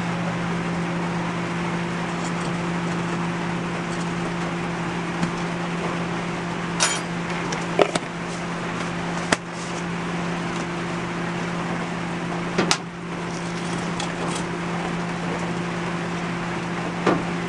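A steady hiss with a low hum underneath, running unchanged, over which come a handful of sharp knocks and clatters as the metal furnace lid and a brass burner pipe are handled.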